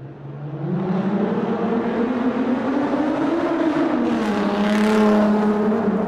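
Car engine accelerating in a tunnel. The engine note swells in over the first second and climbs in pitch, then drops back a little past halfway and holds steady. A rushing noise grows to its loudest near the end.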